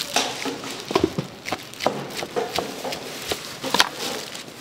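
Irregular knocks and taps of gimbap-making on a cutting board, about half a dozen, the sharpest about a second in and near the end.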